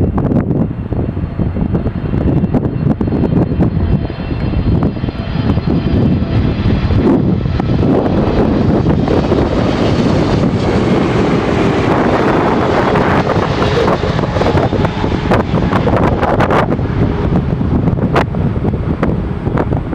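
Boeing 777's twin jet engines rumbling and whining as the airliner comes in to land, growing louder and brighter toward the middle, with gusts of wind buffeting the microphone.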